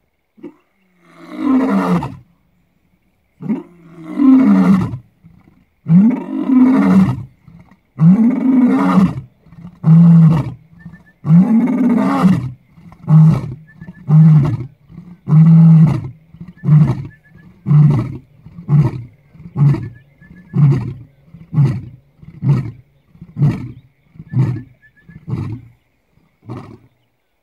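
Male lion roaring a full bout: about six long roars, each rising then falling in pitch, then a run of short grunting roars about one a second that get shorter and fainter toward the end.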